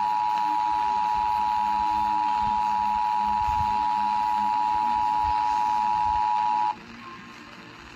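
Emergency Alert System attention signal: a loud, steady two-note alert tone that cuts off suddenly about seven seconds in.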